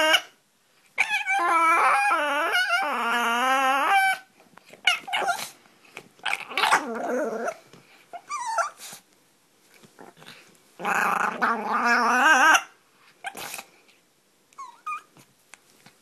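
Pomeranian puppy play-growling in a warbling, wavering pitch: a long drawn-out bout of about three seconds, short yips and squeaks in the middle, then a second bout of about two seconds.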